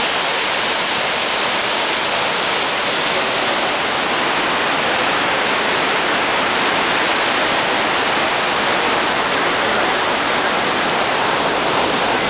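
The Iguaçu Falls' huge waterfall rushing: a loud, steady, unbroken wash of falling water that holds level throughout.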